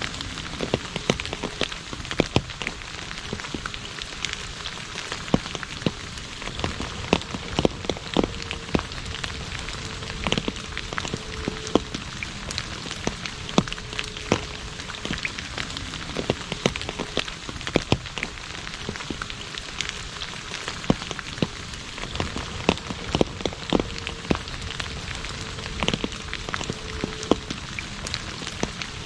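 Rain falling on an asphalt road: a steady hiss broken by frequent sharp splats of individual drops.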